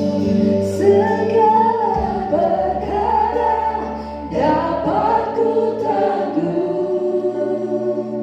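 Choir singing a gospel worship song in phrases over steady, held low notes of accompaniment.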